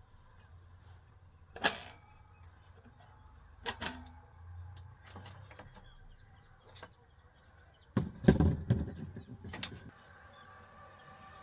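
Sharp knocks and clicks of hard objects being handled: single knocks about two and four seconds in, then a burst of louder clattering knocks about eight seconds in.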